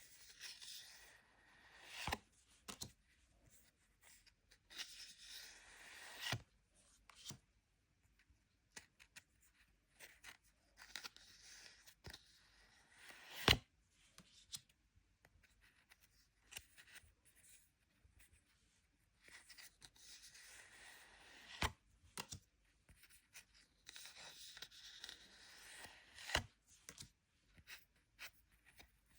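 Foil Pokémon booster-pack wrappers being torn open: five tearing sounds a second or two long, each ending in a sharp click.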